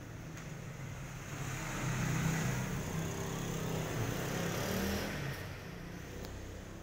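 A motor vehicle engine passing by, swelling for about four seconds and then fading.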